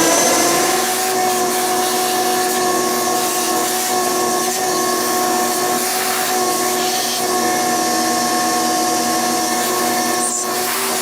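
Old shop vac running at full speed. Its motor whine rises for about the first second as it finishes coming up to speed, then holds steady while it sucks sludge and debris out of the bottom of an air handler.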